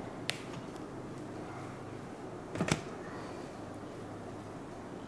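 Quiet room tone, a steady low hiss and hum, with a single small click near the start and a quick double click about two and a half seconds in.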